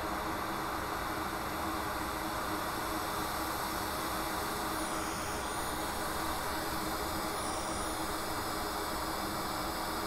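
Hot air rework station blowing a steady hiss of air from its nozzle.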